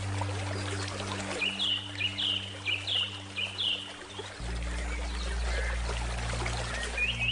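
Flowing river water with a bird giving a quick run of about six repeated chirps, and more near the end, over soft low sustained music notes that change chord about halfway through.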